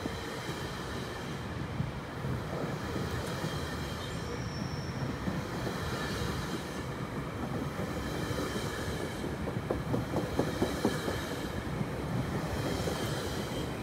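GO Transit bilevel passenger coaches rolling past on steel wheels, with a steady rumble, scattered clacks from the rail joints and a faint high wheel squeal.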